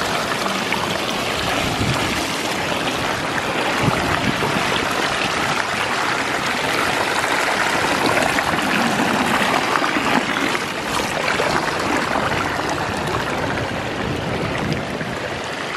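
Water from a pool's waterfall wall pouring down the tiles and splashing into the pool: a steady, even splashing of falling water.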